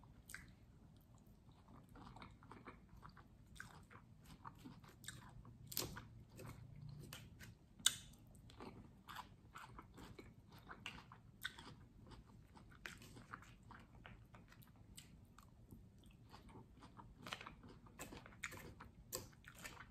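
A person chewing crunchy food close to the microphone: quiet, irregular crisp crunches and mouth clicks, with one sharper crunch about eight seconds in.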